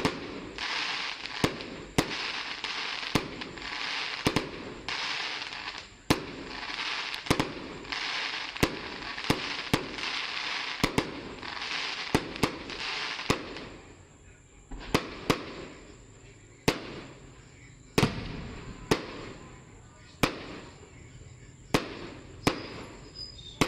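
Aerial fireworks bursting one after another, with sharp bangs about one to two a second over a rushing hiss. The hiss fades about halfway through and the bangs come a little further apart.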